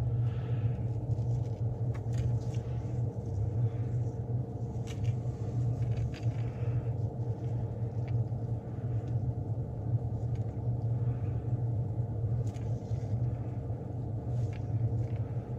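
An electric motor running with a steady low hum, with a faint steady higher tone over it.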